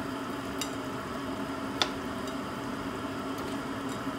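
A pot of beef bulalo broth boiling while chunks of corn on the cob are dropped in, over a steady low hum. There is a faint click early on and a sharp knock a little under two seconds in.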